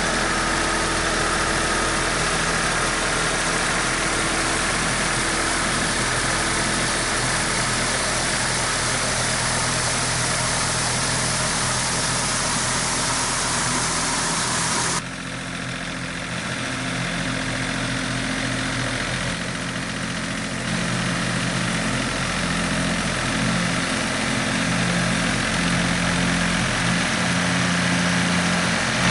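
Yanmar EG225 tractor's diesel engine running steadily while it pulls a drive harrow through a flooded rice paddy, with the harrow churning mud and water. About halfway through, the sound drops in level and the engine hum comes through more plainly, heard from further off.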